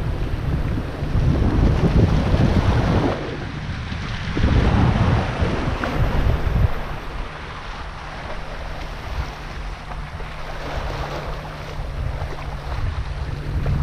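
Wind buffeting the microphone in gusts, over small waves washing and splashing against the rocks of a jetty. The gusts are strongest in the first half and ease off after about seven seconds.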